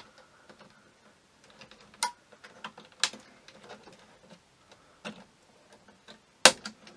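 Plastic clicks and taps from the tabs of a computer's hard drive caddy being pressed in and released, with a few sharp snaps. The loudest snap comes near the end.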